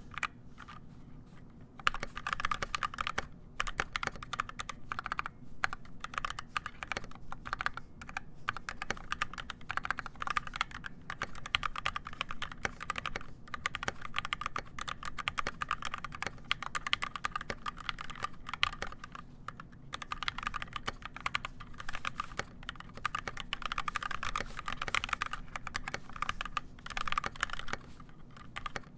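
Rapid typing on an NK65 Entry mechanical keyboard with EV-01 switches and PBT keycaps. A few keystrokes come at first, then a continuous stream of clacks begins about two seconds in, broken by a few short pauses.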